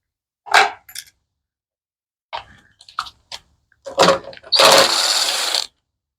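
Tools and metal parts clattering as the air filter assembly is taken off a pressure washer's small engine: a few sharp knocks and clicks, then a dense noisy burst lasting about a second near the end.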